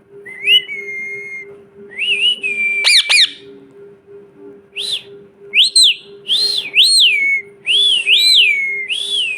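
Pet parrot whistling: first a couple of held whistles with quick pitch sweeps, then a run of about six rising-and-falling whistles in the second half.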